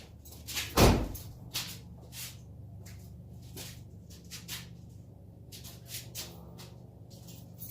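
A heavy thump about a second in, then scattered light clicks and knocks over a low steady hum.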